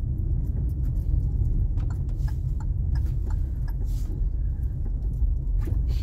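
A car driving along, a steady low rumble from the road and engine, with a few faint clicks and rattles.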